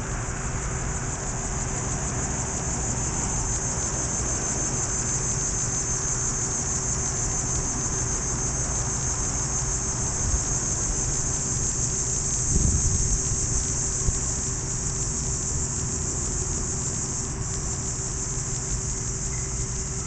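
A steady, high-pitched chorus of insects singing, with a low steady rumble underneath and a brief low bump about twelve seconds in.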